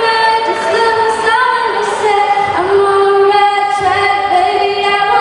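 Female voices singing a melody in long held notes.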